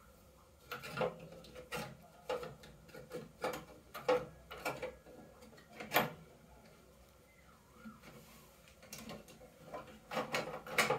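Hands working at the wiring and plastic connectors inside an opened microwave oven: a run of small clicks and light knocks in irregular clusters, with a lull in the middle.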